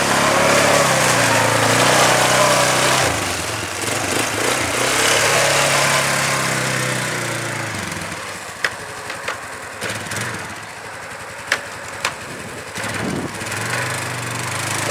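1996 Polaris 425 Magnum ATV's single-cylinder four-stroke engine running and revving up and down while being ridden. It fades as the quad moves off, with a few sharp clicks in the quieter middle, then grows louder again near the end.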